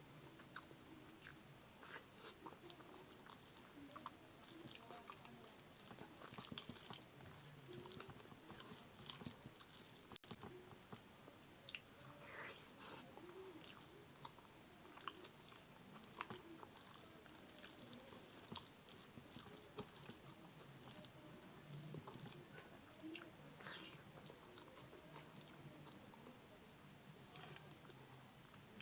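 Faint close-up chewing, with many short, wet mouth clicks and smacks, from a person eating soft rice, boiled potato and omelette.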